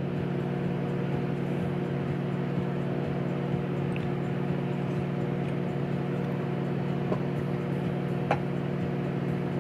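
Steady machine hum made up of several fixed low tones, unchanging throughout, with a few faint clicks in the second half.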